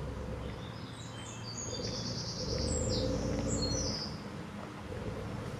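Small birds chirping in quick, high calls over a low steady rumble that swells for a couple of seconds in the middle and then eases off.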